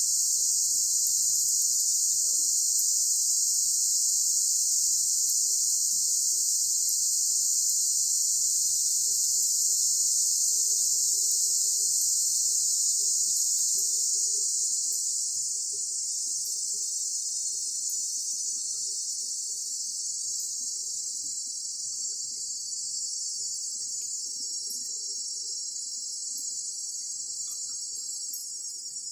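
Crickets chirring in a dense, steady, high-pitched chorus that eases down a little about halfway through, over a faint low hum.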